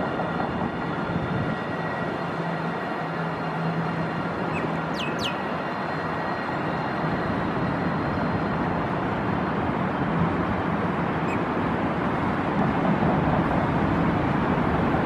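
Street traffic noise with a tram's electric motors whining as it pulls away from the stop, the whine fading out over the first six or seven seconds. Two brief sharp high squeaks about five seconds in.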